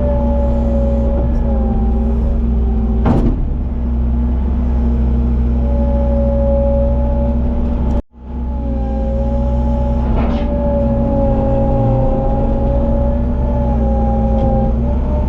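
A 7130 tractor's six-cylinder diesel engine running steadily under way, with a wavering higher whine over the drone and a couple of short clicks. The sound breaks off suddenly for a moment about eight seconds in, then resumes.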